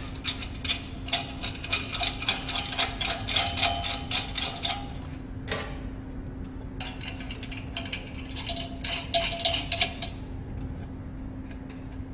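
Small stainless-steel parts and screws of a tea bag machine's bag-forming part clicking and clinking as they are fitted and the screws started by hand: quick light metallic clicks in two spells, the first ending about halfway through. A steady low hum runs underneath.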